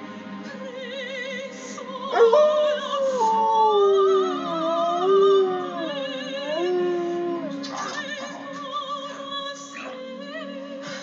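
Alaskan Malamute howling along with an operatic soprano and orchestra: one long howl that glides up and down, starting about two seconds in and fading after about five seconds, over the singer's wavering vibrato.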